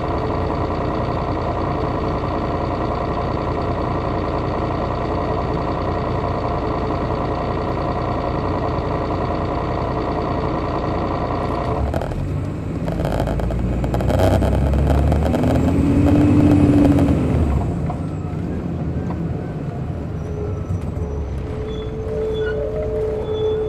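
A Detroit Diesel Series 60 engine running steadily, heard from the rear seats of an MCI D4000 coach. About twelve seconds in, the steady engine note gives way to a louder low rumble with a tone that rises and falls, then a steady tone near the end.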